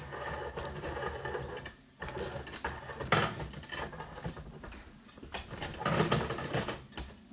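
Irregular rustling and small knocks from a phone and clip-on microphone being handled and carried while walking.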